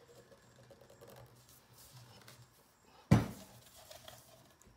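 Faint handling and rubbing as a glued end cap is turned into line on a 3-inch PVC pipe. About three seconds in comes one sharp thump as the capped end of the pipe is stood down on a plywood workbench to seat the cap.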